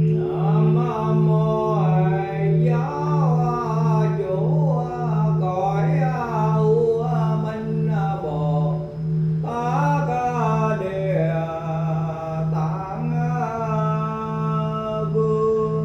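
A voice chanting a Buddhist mantra over the steady, pulsing hum of a singing bowl, with a short break in the chant about nine seconds in.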